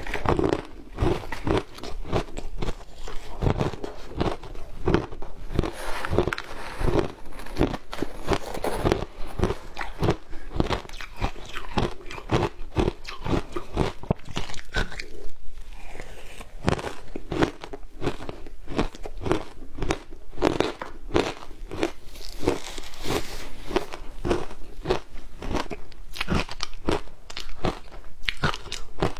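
Frozen matcha ice being bitten and chewed close to the microphone: a rapid, uneven run of crunches and crackles as the ice breaks between the teeth.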